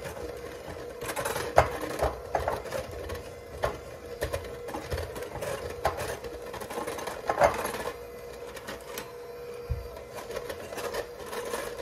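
Electric mixer running steadily with a constant motor whine, creaming softened butter and powdered sugar, with scattered clacks and knocks from the bowl.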